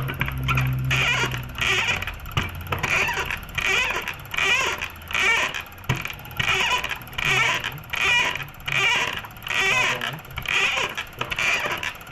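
Surplus fuel injector being pulsed on an injector tester, firing in short repeated bursts about three every two seconds; its spray is judged poor, a sign of a faulty injector.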